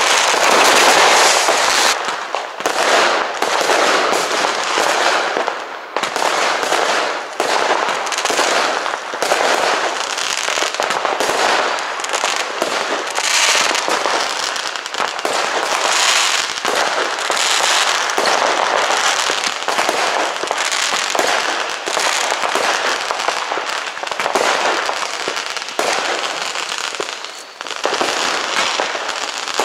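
Many fireworks and firecrackers going off at once in a dense, unbroken barrage of bangs and crackling, densest in the first two seconds.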